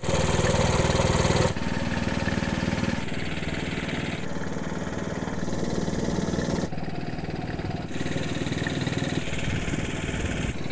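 Small single-cylinder petrol engine of a wooden fishing boat running steadily under way. Its tone shifts abruptly several times.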